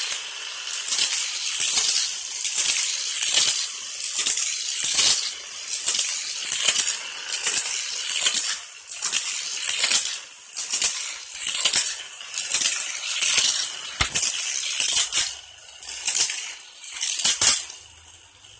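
Die-cast toy cars running around a Hot Wheels Colossal Crash plastic track set, making a rattling clatter that swells and fades about once a second, with a few sharp clacks.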